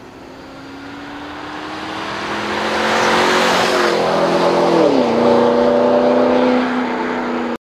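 Cadillac CTS-V Wagon's 6.2 L V8 through a CORSA Sport axle-back exhaust, accelerating past with a deep exhaust note. It rises in pitch and grows louder, drops quickly in pitch about five seconds in, then holds steady and loud before cutting off suddenly.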